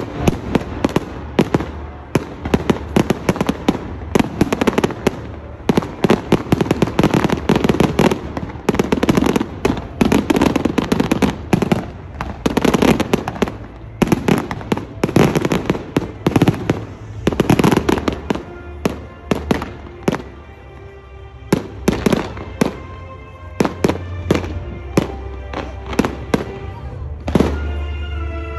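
Fireworks display going off: a rapid, dense string of bangs and crackles that thins out to scattered pops about two-thirds of the way through.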